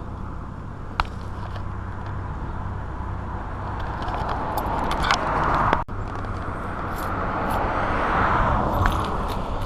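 Road traffic: passing vehicles over a steady low rumble, one swelling about five seconds in and another near the end, with a few faint clicks.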